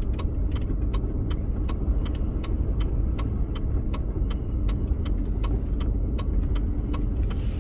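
Car driving, heard from inside the cabin: a steady low road and engine rumble with a regular light ticking about three times a second.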